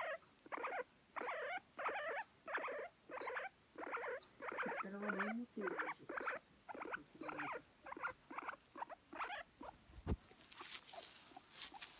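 Guinea pig making a run of short, evenly repeated calls, about one and a half to two a second, its affectionate attention-seeking voice. The calls stop near the end, followed by a single knock and some rustling.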